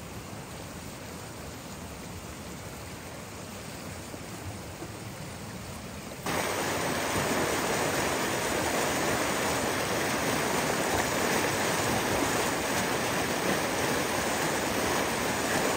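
Steady rush of flowing stream water, which jumps suddenly much louder about six seconds in.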